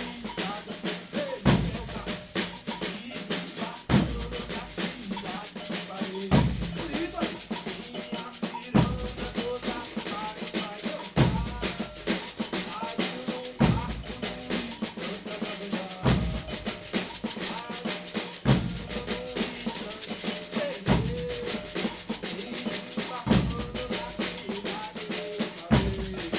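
Brazilian percussion ensemble playing a steady groove: a deep bass drum sounds about every two and a half seconds under a dense run of fast snare-like strikes.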